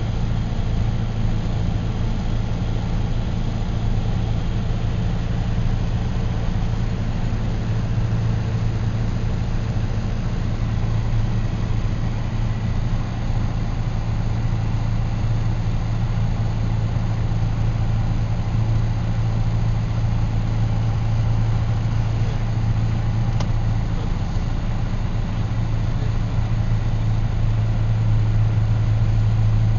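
An engine idling steadily with a low drone, a little louder near the end.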